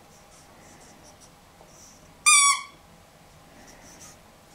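Squeaky dog toy squeezed once: a single short, shrill squeak a little over two seconds in, dipping slightly in pitch as it ends.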